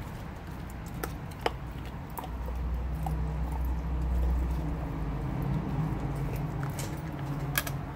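A German Shepherd gnawing and chewing a raw meaty bone, with a few sharp cracks of teeth on bone. A low hum swells in the background from about two seconds in.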